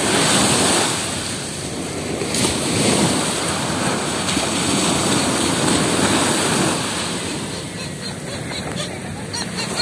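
Sea surf breaking and washing up the beach, the rush of water swelling and easing every few seconds.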